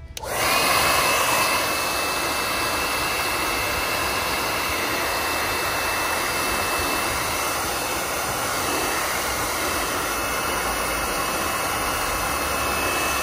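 Handheld hair dryer coming on abruptly and running, a steady rush of blowing air with a thin, steady high whine.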